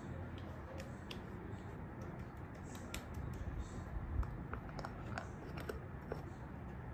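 Light clicks and taps of small objects being handled over a steady low hum, with a soft thud about four seconds in; near the end a small jar is picked up and handled.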